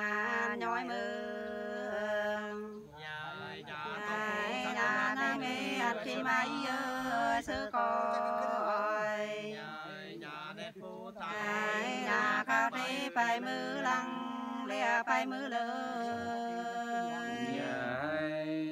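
Unaccompanied Nùng hát sli folk singing: two voices in a slow, drawn-out duet, one holding a steady low note beneath the other's winding, gliding melody.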